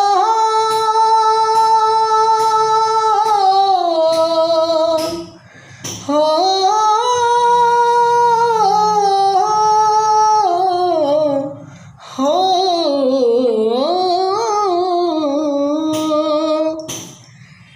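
A high solo voice singing long, drawn-out wordless vowel notes in a Bhojpuri folk song. There are three long phrases, each held with a wavering vibrato and sliding between pitches, with a short breath between them.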